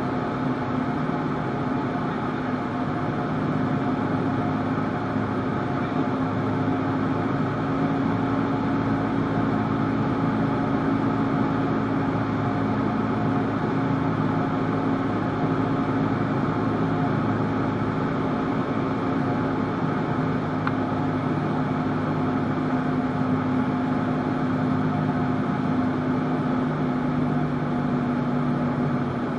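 Cessna 172's piston engine and propeller droning steadily, heard inside the cockpit through the landing approach and the roll along the runway.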